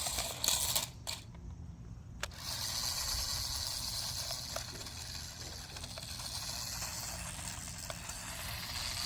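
Small electric drive motors of a toy RC tracked stunt car running, a thin steady high whine. It cuts out for about a second near the start, with a click as it stops and another as it starts again.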